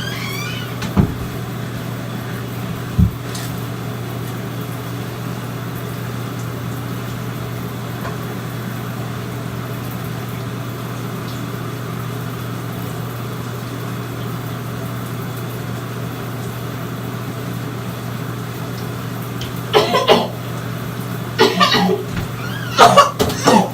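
Steady low hum with a faint hiss, broken by two short knocks in the first few seconds, then several loud harsh coughs in quick succession near the end.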